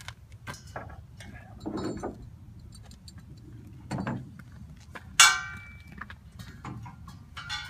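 Steel loading ramps knocking and rattling as they are handled and hooked onto a truck-mounted carrier: several separate metal clanks, the loudest, about five seconds in, ringing on briefly.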